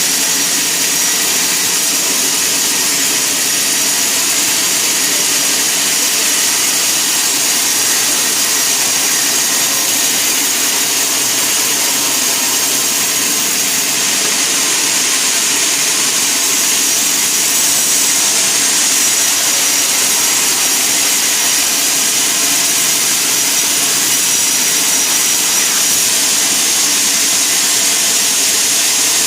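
Sawmill saw running steadily and loudly, a continuous high-pitched machine noise with no breaks.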